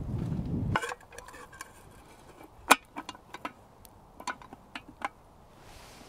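A low rustling rumble cuts off abruptly under a second in. Then a small campfire crackles with scattered sharp pops, the loudest about two and a half seconds in.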